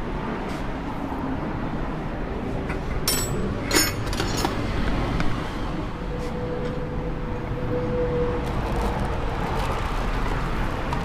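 Steady traffic noise of passing vehicles, with a few short metallic clicks about three to four seconds in.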